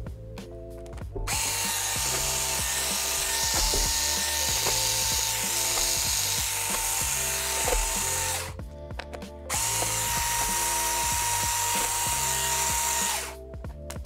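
Electric screwdriver running in two long spells with a steady whine, about seven seconds and then about four seconds with a short pause between, backing out a laptop's bottom cover screws. Background music plays underneath.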